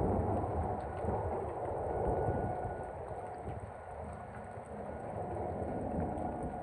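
Strong wind gusting with heavy rain in a thunderstorm, swelling in the first half with a low rumble beneath. A faint, steady tornado siren tone drifts in and out behind it.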